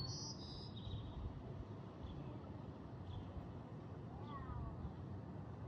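Quiet outdoor ambience: a low steady rumble with faint high bird chirps at the very start and a short, bending call about four seconds in.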